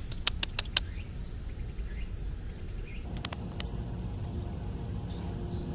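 Outdoor field ambience: a steady low rumble, likely wind on the microphone, with short high chirps or clicks. A quick run of them comes in the first second and a few more about three seconds in.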